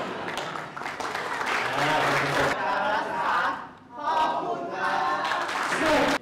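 A group of voices cheering and calling out together, with hand clapping, in two stretches with a short break just before the middle.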